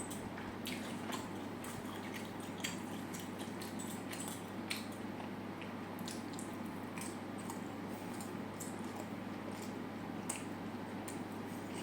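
Close-miked chewing of food, with irregular wet, smacking mouth clicks over a steady low hum.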